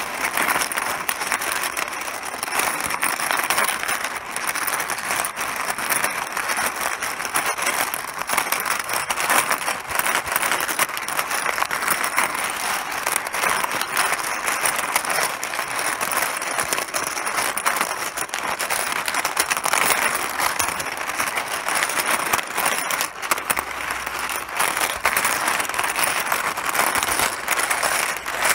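Mahjong tiles clattering against each other and the table, a continuous dense stream of hard little clicks with no pauses.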